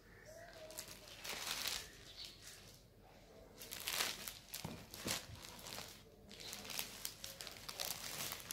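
Tana silk Paithani saree rustling in several bursts as it is unfolded and spread out by hand, loudest about four seconds in when the cloth is flipped over.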